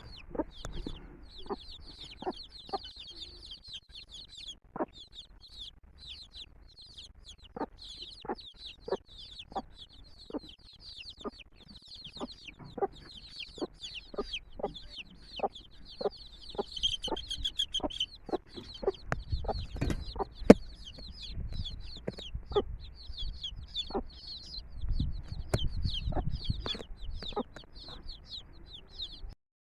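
A brood of chicks peeping without pause, a dense chorus of quick high downward-slurred peeps, with many short sharp clicks scattered among them. A low rumble comes in twice in the second half.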